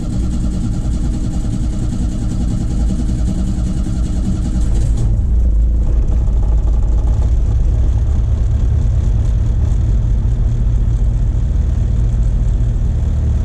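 Cold start of a turbocharged 1.9 VW AP four-cylinder running on ethanol: the engine is slow to catch, which the owner puts down to its very low compression ratio on a cold day, then holds a steady idle with no throttle. About five seconds in, the hiss falls away and the low rumble grows louder.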